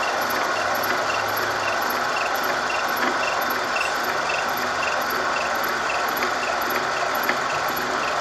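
Horizontal milling machine running, its arbor-mounted gear cutter milling a helical tooth into a metal gear blank turned by a dividing head as the table feeds. A steady machine sound with a faint high chirp repeating about twice a second.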